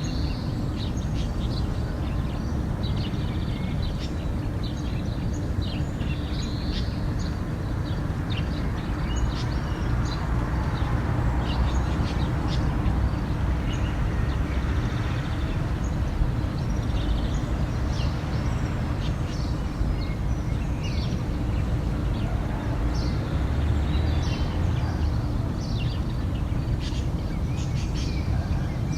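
Dawn chorus of many small birds, with short, quick chirps and twitters that keep overlapping, over a steady low rumble of outdoor background noise.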